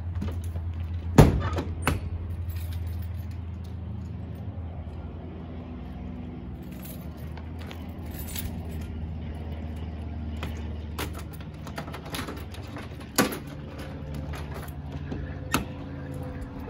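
Keys jangling with sharp metal clunks and clicks, the loudest about a second in, as a service truck's side tool compartment is shut and latched. A steady low hum runs underneath.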